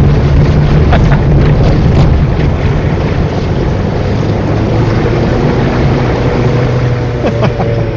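Fiat Panda 4x4's petrol engine running as the car fords flood water, with loud rushing and splashing of water against the car, heaviest in the first few seconds and then easing off.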